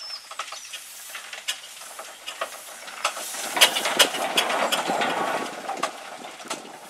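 Ruston Proctor steam traction engine on the move: a steady hiss of steam with short, sharp exhaust beats at uneven intervals. The sound grows louder about halfway through and eases off near the end.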